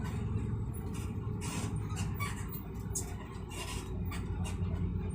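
Steady low rumble of a road vehicle travelling, with a scattering of short light clicks and rustles over it.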